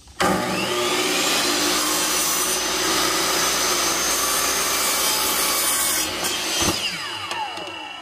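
DeWalt compound miter saw started up and plunged through a piece of quarter round trim, running steadily for about six seconds, then released and winding down with a falling whine near the end.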